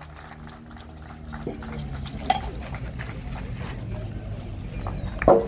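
Steel boules clacking together as shots in a boule lyonnaise shooting drill hit the target boule: two sharp clacks, each with a short ring, a lighter one about two seconds in and a louder one near the end, over a steady low hum.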